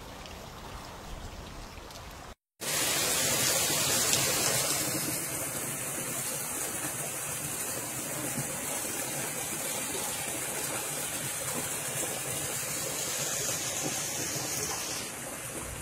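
Heavy rain pouring down, a steady hiss of water. The sound cuts out for a moment about two and a half seconds in and comes back louder.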